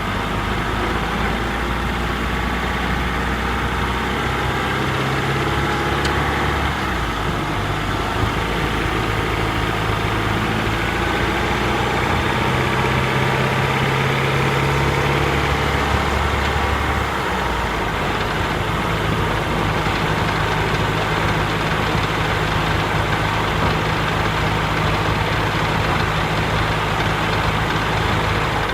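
Honda Freed Hybrid i-DCD powertrain with its 1.5-litre four-cylinder engine running while driving cold, still warming up, heard from the cabin and engine bay at once. A steady drone with a shift in its low tones about 7 seconds and 17 seconds in. It carries the abnormal noise that this system makes in the cold warm-up state, prominent with the engine and motor in 5th gear.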